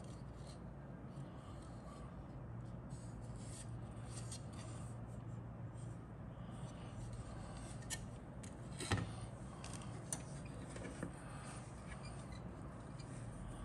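Plastic model-kit parts being handled: a large fuselage half rubbed in the hands and against the parts sprues. A few light plastic clicks and taps come through, the loudest about nine seconds in, over a steady low hum.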